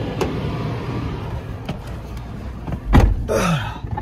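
Steady outdoor background noise, then a car door slams shut about three seconds in, the loudest sound here, followed by a man's short falling grunt.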